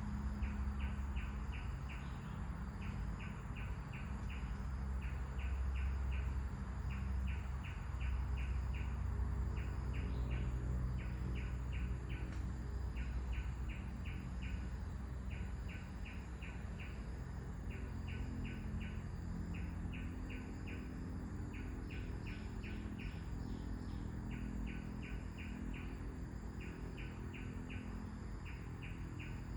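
A bird calling over and over in short rapid trills of about six quick notes, one trill every second or so, with a low wind rumble underneath.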